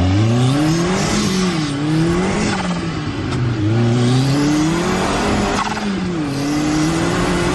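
Turbocharged side-by-side UTV engine revving up and down several times as it is driven hard, its pitch rising and falling with the throttle, with a hiss about a second in and again past halfway.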